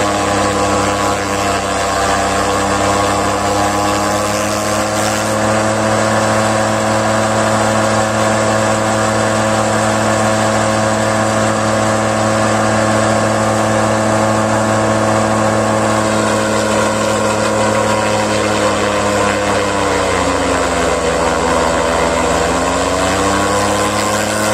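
Massey Ferguson tractor running a PTO-driven forage chopper that is chopping napier grass and blowing it into a trailer: a loud, steady machine hum. Near the end the pitch sags and then picks back up, as the engine takes the load of grass being fed in.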